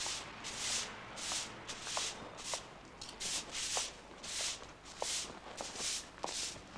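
Broom sweeping a pavement in brisk strokes, each stroke a short bristly swish, about two a second.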